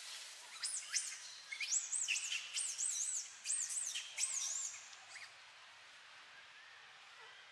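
A run of very high, whistled chirping calls, each note rising and falling, repeated in quick groups for about four seconds before stopping, over a faint steady outdoor hiss.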